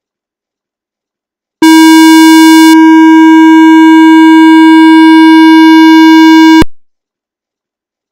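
A loud, steady, buzzy electronic tone at one pitch, starting abruptly about a second and a half in and cutting off suddenly about five seconds later.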